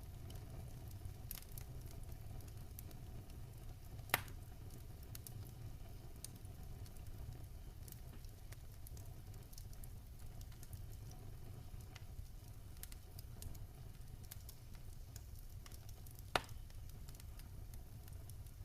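Campfire burning with a low rumble and scattered soft crackles, and two sharper pops of burning wood, one about four seconds in and one near the end.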